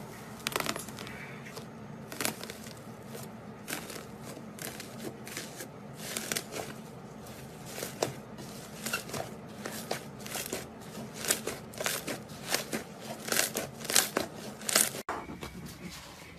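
Slime being squeezed and poked by hand, giving a string of irregular sticky clicks and pops that come faster in the second half.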